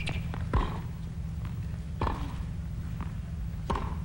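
Tennis rally: the ball hit back and forth with rackets, three sharp hits about a second and a half apart, with fainter knocks between them.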